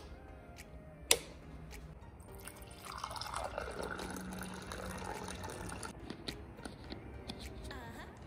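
Hot drinks machine dispensing hot chocolate into a cup: two sharp clicks, then liquid pouring from about three seconds in, over a faint steady hum.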